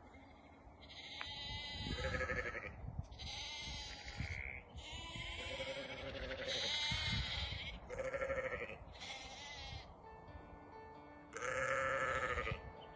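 Sheep bleating repeatedly, about seven quavering calls one after another, with a short gap before the last one near the end.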